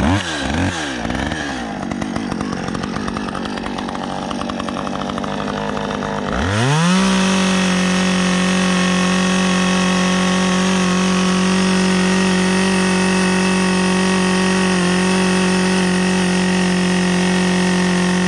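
Two-stroke RedMax top-handle chainsaw pull-started, running unevenly at low speed for about six seconds, then opened to full throttle with a rising whine and held steady at wide-open throttle. Meanwhile its carburettor's high-speed screw is being turned to lean out a mixture that the operator takes to be too rich and short of power.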